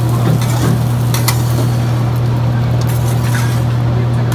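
Metal spatula and knife clicking and scraping against a steel hibachi griddle as vegetables sizzle, with a few sharp clicks over a steady low hum.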